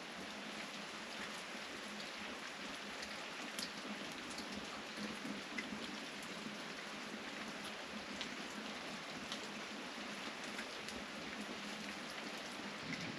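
Food frying and sizzling in a pan: a steady hiss with scattered small crackles.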